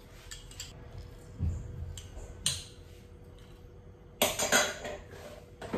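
A few small metallic clicks from a hand-held metal lime squeezer. A little after four seconds in, a loud metal clatter as it is put down in a steel kitchen sink.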